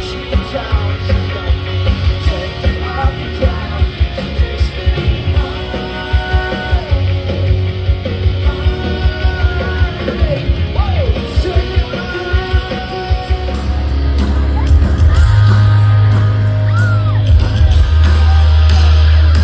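Rock band playing loud with a yelled and sung vocal over a steady beat; the music gets heavier and louder about two-thirds of the way through.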